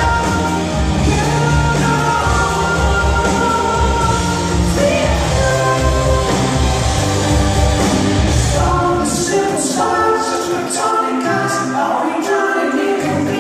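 Live progressive rock band playing with a sung lead vocal over keyboards, guitar and drums. About nine seconds in the low end thins out, leaving voice and keyboards over cymbal strokes.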